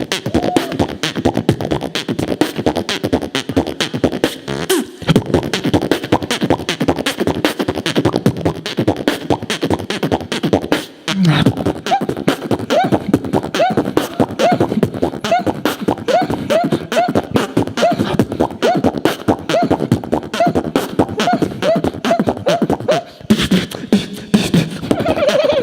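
Human beatboxing: fast, dense percussive mouth sounds. In the second half comes a run of short, repeated pitched chirps, about two a second, over the beat, with brief breaks in the beat along the way.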